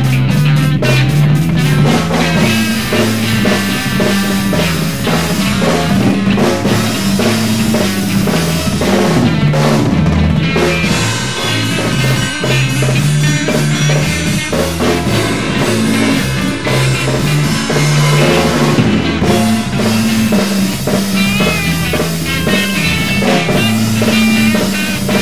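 Multi-tracked instrumental blues jam: drum kit keeping a steady beat under guitar, with a low line that moves in steps.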